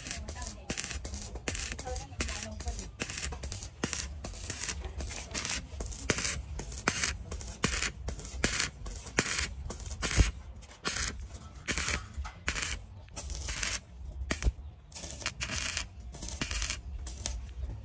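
Rhythmic rasping strokes, about two a second, of a hand tool working hard material, over a steady low rumble.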